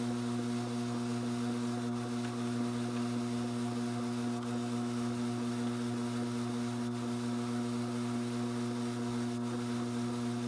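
Strauch Mad Batt'r electric drum carder running, its motor giving a steady, even hum as the drums turn.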